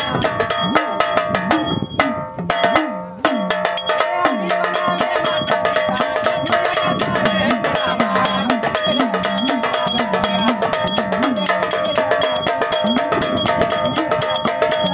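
Marathi folk devotional music: a fast steady beat of drum and ringing, bell-like metal percussion under a wavering melodic line. It dips briefly about two seconds in.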